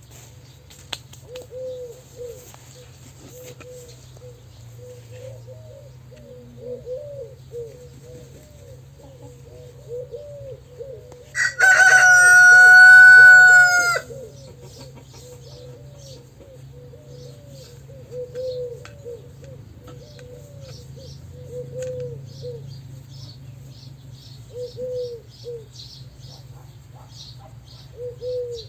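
A rooster crows once, loud and drawn out for about two and a half seconds, midway through. Around it runs a steady string of softer short calls that fit hens clucking, with small birds chirping high up.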